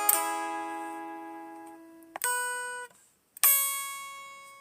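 Guitar notes plucked and left to ring out. One chord sounds just after the start, another about two seconds in is cut short, and a last one comes about three and a half seconds in and slowly fades away.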